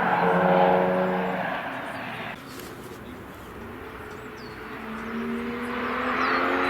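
Cars passing on a wet circuit: one car's engine and tyre hiss fade away over the first couple of seconds. After a lull with a few bird chirps, the next car approaches with its engine note rising in pitch and growing louder.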